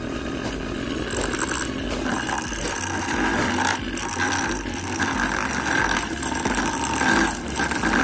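Homemade lathe's 12 V DC motor running while a hand-held metal tool scrapes and cuts into a spinning wooden stick, turning it to shape; the scraping is uneven, swelling and easing.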